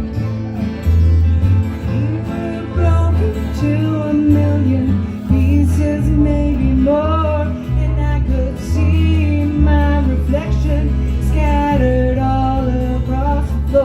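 Live country band playing, with guitar and a bass line stepping through a note about every second, and a wavering melody line over it.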